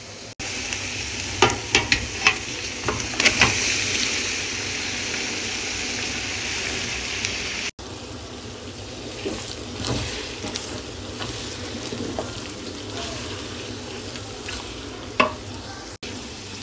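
Beef liver pieces sizzling in hot oil and onions in a metal pot. A cluster of knocks and clatters comes in the first few seconds. After an abrupt cut about eight seconds in, the sizzling is quieter and steady, with occasional scrapes and knocks of a wooden spoon and one sharp knock near the end.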